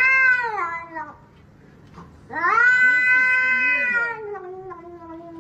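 A cat giving two long, drawn-out meows, the first fading out about a second in and the second starting a little after two seconds and lasting over two seconds.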